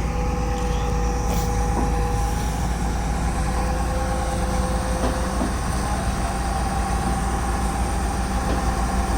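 Tata Hitachi hydraulic excavator's diesel engine running steadily while the machine is manoeuvred onto a trailer, a constant low rumble with a steady higher whine on top.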